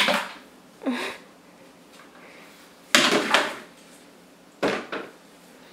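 A toddler's broom knocking and clattering on a tile floor and against wooden cabinets: a few sharp knocks about a second in, a louder clatter about three seconds in, and two more quick knocks near the end.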